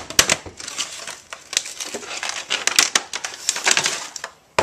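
Stiff clear plastic packaging crackling and crinkling with many sharp clicks as a plastic bit case is pulled and worked out of it. The crackling stops just before the end.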